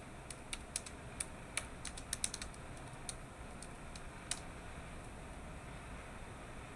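A quick, irregular run of light clicking taps, like typing, over a faint steady hiss. The taps come thick in the first two and a half seconds, then only once or twice more, the last about four seconds in.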